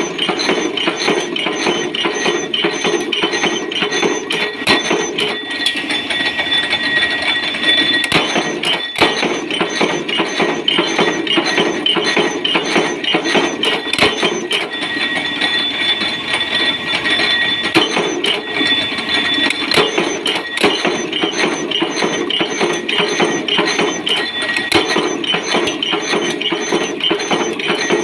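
Power press running continuously with a washer die that punches the centre hole and blanks the washer in one stroke from a hand-fed sheet-metal strip: a rapid, steady train of metallic clicks and clatter, with a high ringing note over it.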